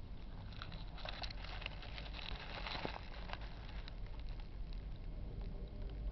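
Soft rustling with scattered small clicks and scratches, densest in the first half, over a steady low hum.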